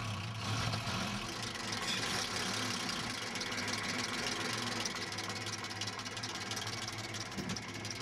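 Praga RN truck's petrol engine running steadily at idle, heard close at the open engine bay with its radiator fan turning.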